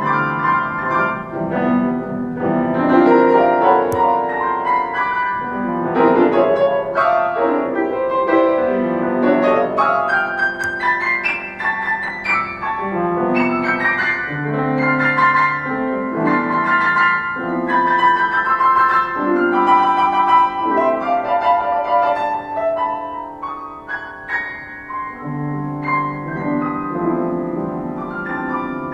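Piano music: a piano playing a melody over chords, with low notes held under each change.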